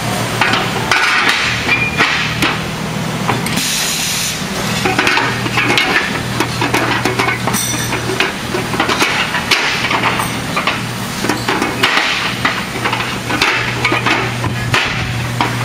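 Aluminium platform deck segments and frame parts clanking and knocking as they are handled and set into place, in irregular metallic knocks and rattles over a steady low hum.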